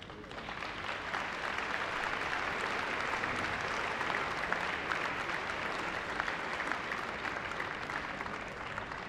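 A large crowd applauding: a dense patter of many hands clapping that builds up within the first second, holds steady, and eases off near the end.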